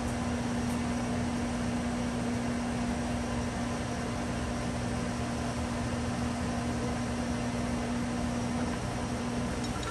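Sharp 1640C engine lathe running with the spindle on: a steady machine hum with one constant tone, as the carriage feeds along the bed on the half nut. The tone breaks off just before the end.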